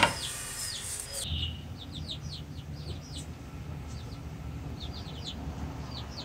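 Small birds chirping: many short, quick downward chirps, several a second at times, over a low steady background rumble. A sharp click right at the start.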